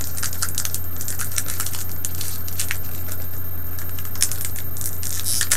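Foil wrapper of a Pokémon trading card booster pack crinkling in short, irregular crackles as it is handled and opened, over a steady low electrical hum.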